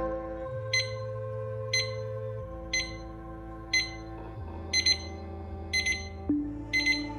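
Seiko SQ698L digital alarm clock sounding its step-up electronic alarm: short high beeps once a second, switching about four seconds in to double beeps once a second as the alarm escalates a step. Soft background music with sustained chords plays underneath.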